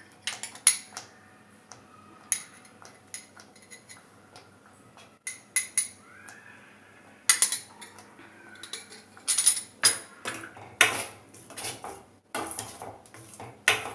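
A spoon clinking and scraping against a cooking pan in irregular knocks, some of them louder, as a thick cheese white sauce is stirred.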